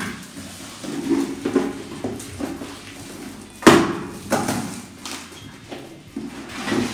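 A large cardboard shipping box being opened by hand: its flaps are pulled apart and folded back, giving irregular scrapes, crackles and knocks of cardboard. The loudest knock comes about halfway through.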